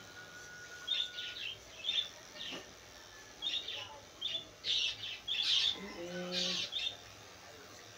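Small birds chirping, short high chirps coming again and again, over the faint steady hum of corded electric pet clippers.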